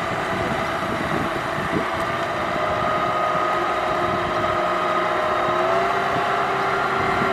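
Farm tractor's diesel engine running steadily under load as the tractor works through deep mud, its pitch rising slightly a little over five seconds in.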